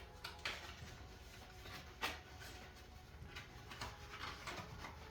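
Packaging and helmet parts being handled: a scatter of light clicks, knocks and rustles, the sharpest about two seconds in.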